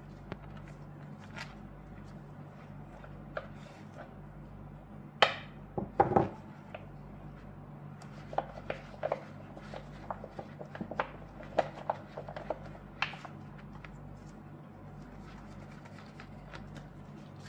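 Metal tart ring knocking on the work surface as it is pressed down through rolled shortcrust dough and set down, with a sharp knock about five seconds in and a cluster of knocks just after. Scattered light taps and clicks of handling the ring and dough follow, over a steady low hum.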